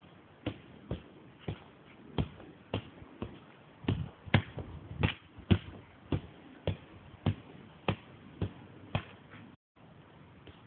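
A football being juggled on the feet, a dull thud of boot on ball about twice a second, the thuds stopping abruptly shortly before the end.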